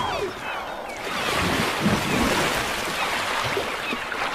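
Sea water splashing and surging as a humpback whale lunges open-mouthed through the surface while feeding on a fish shoal.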